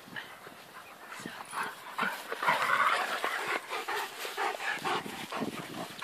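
Bernese mountain dogs play-fighting at close range, making dog noises, with a busy patch of short, irregular sounds that is loudest between about two and three and a half seconds in.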